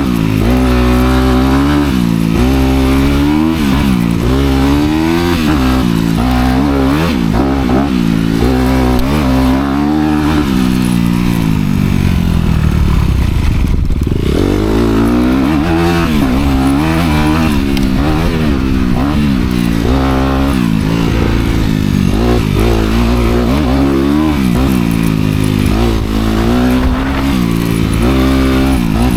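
Honda CRF250R's single-cylinder four-stroke engine through its dual exhaust, revving up and down hard as the dirt bike is ridden, its pitch rising and falling every second or two. About twelve seconds in the revs drop low for a couple of seconds, then climb again.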